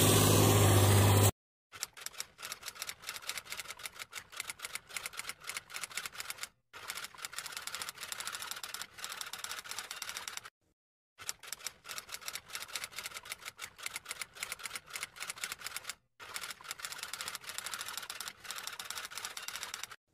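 Rapid, dense clicking much like typewriter keys, in stretches broken by short silences. It opens with a loud steady hum that cuts off suddenly about a second and a half in.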